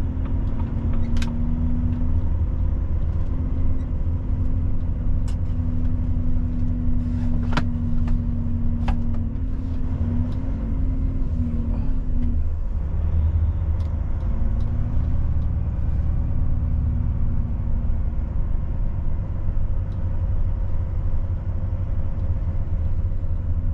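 Volvo FH truck's diesel engine running at low speed as the truck is driven slowly around a yard: a steady low rumble with an engine hum that wavers and drops away about halfway through. A few sharp clicks stand out above it.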